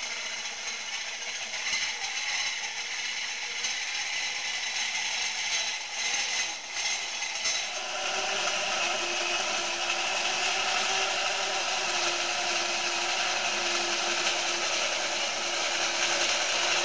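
Cordless drill spinning a carbide burr on a long extension shaft inside steel square tubing, the burr grinding away the internal weld seam. Scattered clicks and rattles in the first half give way about halfway to a steady grinding with a low hum underneath.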